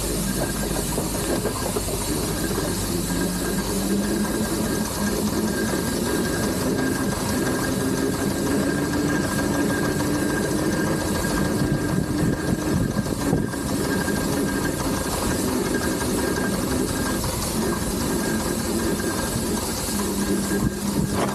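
Steam traction engine on the move: a steady rapid mechanical clatter with a hiss of steam and a whine that rises slowly in pitch over the first half, fading out, then returning near the end.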